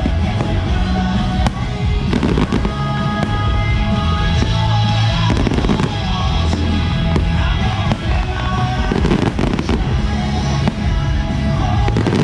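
Aerial fireworks shells going off in a string of bangs and crackles, with loud music playing throughout.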